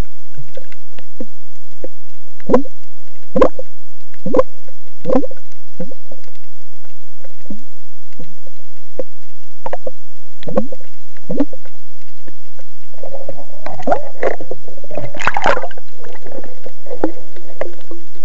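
Sea water slapping and sloshing around a camera on a speargun at the surface: a series of sharp slaps over a faint steady hum. About thirteen seconds in comes a longer stretch of splashing and gurgling as the camera goes under.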